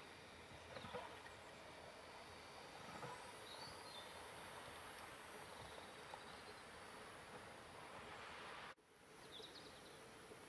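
Near silence: faint steady outdoor hiss, with a few faint high chirps.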